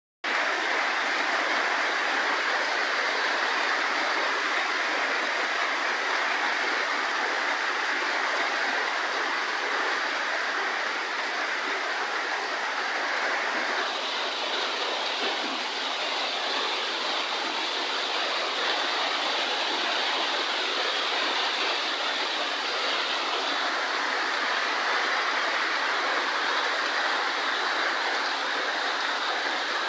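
Heavy typhoon rain pouring steadily, a dense, even hiss. For a stretch in the middle the hiss turns a little brighter.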